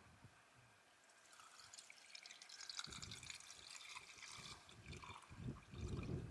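Water poured from a plastic bottle into a small camping cook pot, a thin trickle splashing inside the pot, starting about a second and a half in. A few soft low thumps of the pot being handled come near the end.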